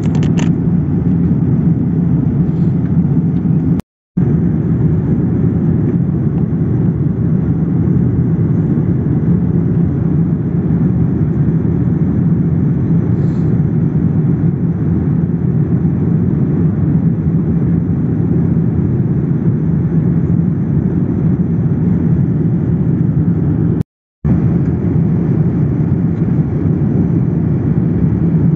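Steady cabin noise of a Boeing 787 airliner in cruise, a dense low rumble heard from a window seat. The sound cuts out briefly twice, about 4 and 24 seconds in.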